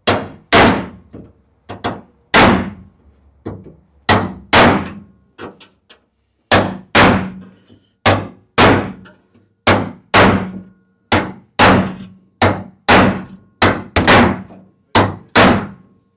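Hammer blows on the dented rear body panel of a classic Lancia coupe, struck from inside the boot to beat the panel back into shape. The blows come about two a second, often in pairs, each ringing briefly.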